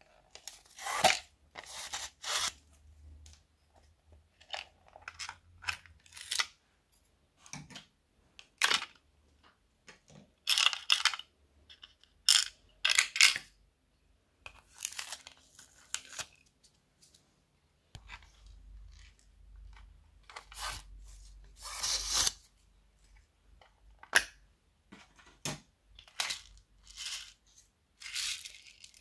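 A plastic unicorn-shaped case being handled and opened: irregular bursts of plastic crinkling, tearing and clicking, with quiet gaps between. Near the end, small foam beads spill out of the pink plastic container.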